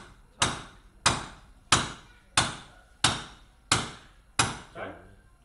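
Hammer blows on a metal grounding rod, seven sharp strikes at an even pace of about one and a half a second, each ringing briefly and dying away, as the rod is driven in.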